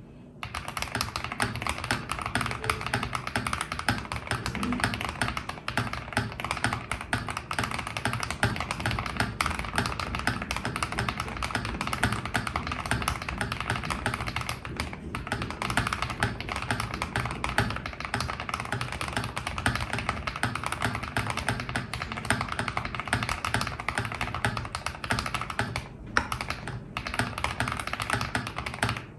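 Continuous fast typing on a Keydous NJ80 mechanical keyboard, foam- and tape-modded, with lubed KTT Strawberry linear switches and DAGK Cherry-profile keycaps: a dense stream of keystroke clacks. It pauses briefly about halfway through and twice near the end.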